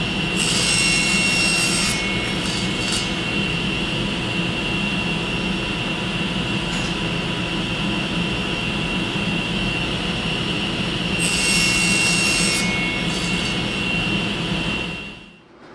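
Table saw running with its blade whining steadily, making two short rip cuts through small pieces of wood: one about half a second in and one about eleven seconds in, each lasting about a second and a half. The sound cuts off abruptly just before the end.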